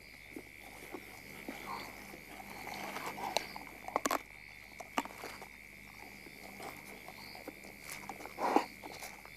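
Rustling and sharp clicks of an animal struggling with prey at night, with a louder scuffle near the end, over a steady high-pitched night chorus.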